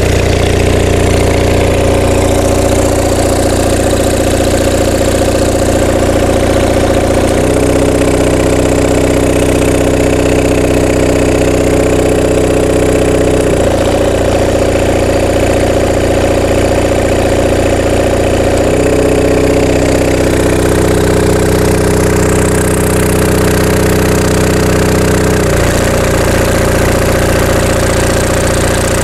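Onan MDJE diesel generator set running steadily, with a crackly exhaust note. Its engine note changes abruptly four times, about 7, 13, 19 and 25 seconds in, as a 6,000-watt load is dropped off and thrown back on in one step.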